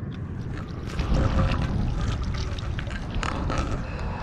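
Wind rumbling on the microphone, with a run of irregular splashes and clicks as a hooked trout is drawn in at the water's edge; it gets louder about a second in.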